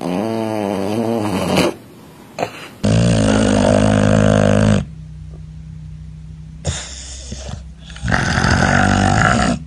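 Sleeping dogs snoring: three long, loud snores, the first from a black-and-white puppy and the later two from an English bulldog.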